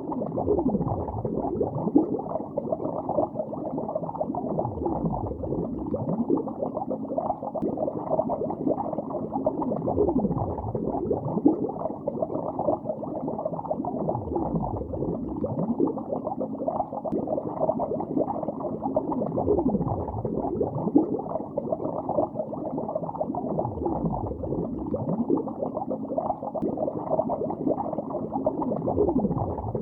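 Continuous underwater bubbling: a dense stream of gurgling bubbles with nothing high-pitched in it. About every five seconds a deep tone sweeps down and back up.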